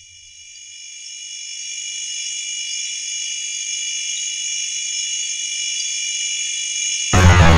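A steady high-pitched drone made of several held ringing tones, swelling in over the first couple of seconds. Loud, bass-heavy music cuts in abruptly near the end.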